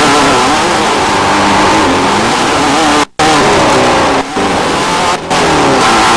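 Off-road desert race vehicle engines revving and running hard, their pitch rising and falling. The sound breaks off abruptly for a moment about three seconds in and dips briefly twice more later.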